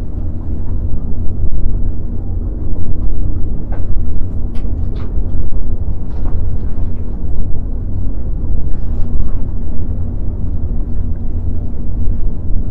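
Wind buffeting the microphone: a loud, uneven low rumble that swells and dips, with a faint steady hum underneath and a few light ticks.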